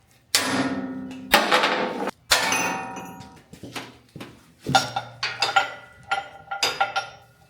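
Metal clanking: a run of sharp, uneven strikes on metal, each ringing out and fading. The loudest ones come in the first two and a half seconds.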